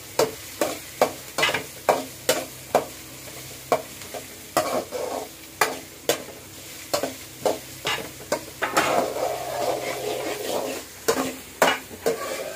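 A metal ladle scraping and knocking against a metal kadai as chopped onions are stirred and sautéed in oil. The strokes come as sharp clicks about twice a second, with a continuous scrape about nine seconds in, over a light sizzle.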